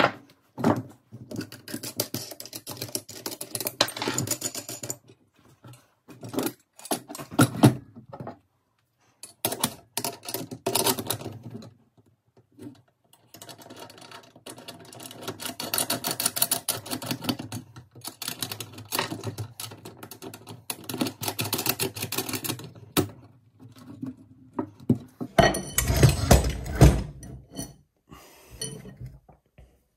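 Metal parts of a chainsaw mill being handled and bolted together on a wooden workbench: long spells of rapid metallic clicking and rattling with scattered knocks. Near the end come several heavier, deeper knocks as parts are set down on the bench.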